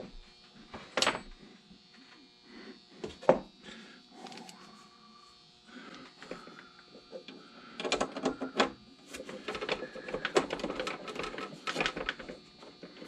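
Hands taking apart a plastic and metal teleprompter build: scattered knocks and clicks of parts being handled, with two sharper knocks early, then a long run of rapid clicking and rattling over several seconds.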